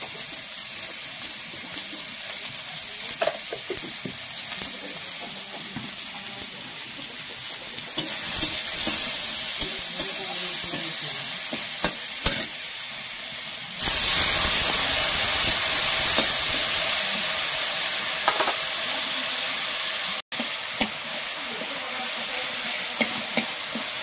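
Tomato pieces sizzling in hot oil in a steel kadai, with a metal spoon scraping and clinking against the pan as they are stirred. The sizzle grows louder about a third of the way in, jumps up suddenly a little past halfway, then slowly dies down.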